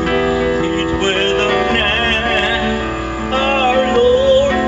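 Man singing into a microphone over amplified instrumental accompaniment; near the end he holds a long note with vibrato.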